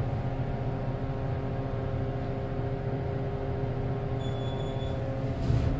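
Montgomery traction elevator car, modernized by Kone, travelling in its hoistway: a steady low rumble with a constant motor hum. A faint high beep sounds about four seconds in.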